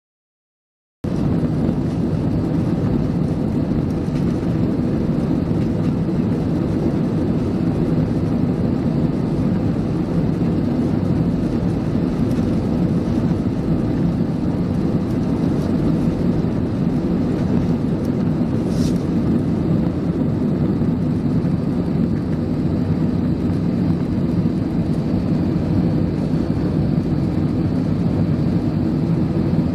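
Jet airliner's engines at takeoff power heard from inside the cabin: a loud, steady rumble through the takeoff roll and climb-out, cutting in abruptly about a second in.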